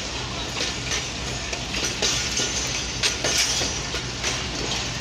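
Diesel locomotive pulling a passenger train slowly past: a steady low engine drone, with a few uneven clicks and clanks from the wheels and couplings.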